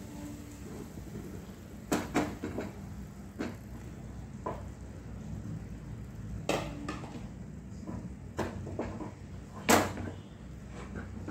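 An egg frying in oil in a nonstick pan, with a steady sizzling hiss. Over it come about nine sharp kitchen knocks and clatters, the loudest near the end.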